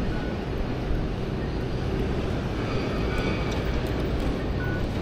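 Steady city street background: a low rumble of road traffic.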